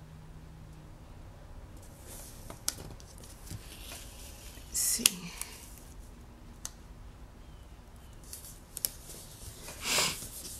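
Paper handling on a planner page: a sticker being pressed and rubbed down, with a few light ticks and short papery swishes, the loudest swish near the end.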